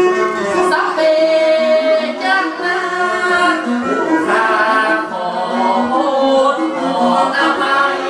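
Northern Thai saw (ซอ) singing: a voice sings a drawn-out, ornamented melody over a small traditional ensemble that includes a sueng, a plucked lute, with held tones sounding under the voice.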